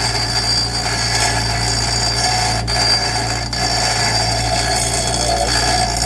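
Angle grinder cutting into a small piece of steel, a steady high-pitched whine over a harsh grinding hiss that dips twice briefly; it is grinding a semicircular notch so the piece matches the profile of a round tube.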